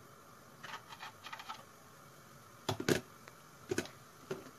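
A few light clicks and knocks: a close pair about two-thirds of the way through, then two single ones near the end, over faint room tone.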